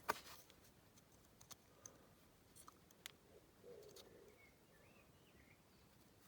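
Faint, scattered clicks and taps of a small tool and metal parts on a die-cast toy car as a wheel and axle are worked loose: one sharper click at the start, then a few lighter ones.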